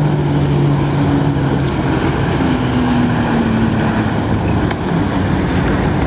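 Personal watercraft (jet ski) engine running steadily under throttle, pumping water up the hose to a flyboard. Its engine note shifts slightly in pitch partway through.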